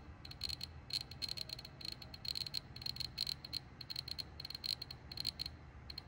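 CD V-700 Geiger counter clicking at random, several sharp clicks a second, each one a detected count at a low reading on the X10 range. No high-voltage squeal comes through under the clicks: the squeal was cured by adjusting the high-voltage potentiometer.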